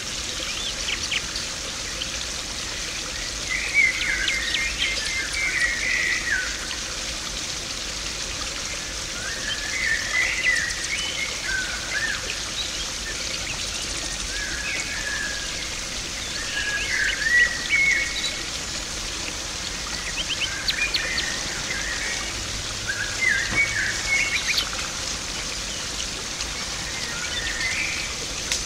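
Garden pond water splashing and rushing steadily, with small birds chirping in short phrases every few seconds.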